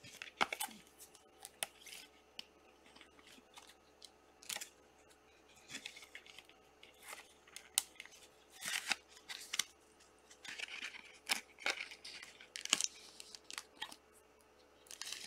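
Trading cards being handled by hand: soft, irregular rustling and sliding of card stock, broken by small sharp clicks and snips.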